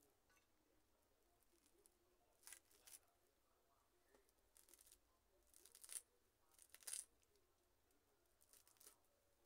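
Faint, short snips and rustles of a plant being trimmed and handled while it is repotted, about half a dozen spread through, the two loudest about six and seven seconds in.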